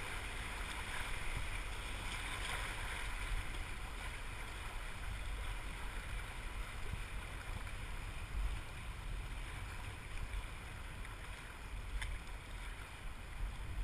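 Fast river water rushing steadily along a canoe's hull, with wind rumbling on the camera microphone. A light tap near the end.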